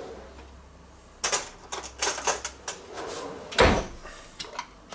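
Kitchen drawer being opened and rummaged, with utensils clicking and clattering. One solid knock comes about three and a half seconds in.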